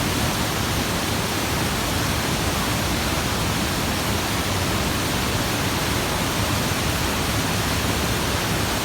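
Waterfall's falling water: a loud, steady, even rush.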